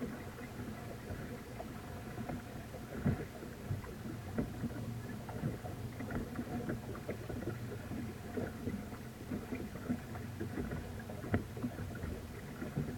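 A boat motor running steadily, with irregular knocks and splashes of water against the hull.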